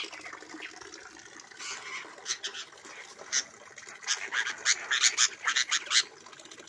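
Birds giving a rapid, irregular series of short, sharp calls, thickest in the last couple of seconds.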